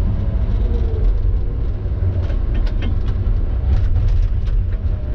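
Diesel engine of a Tigercat knuckleboom log loader running steadily, heard from inside its cab as a heavy low rumble, with a few light clicks in the middle.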